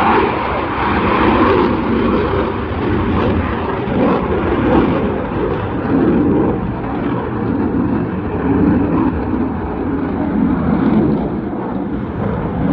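Eurofighter Typhoon's twin EJ200 turbofan jet engines, a loud continuous roar that swells and eases every second or so.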